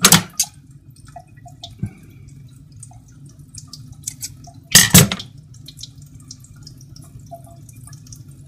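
Handling noise of a straight razor over a wet honing stone: scattered light clicks and taps, with two short louder sounds, one at the start and one about five seconds in, over a low steady hum.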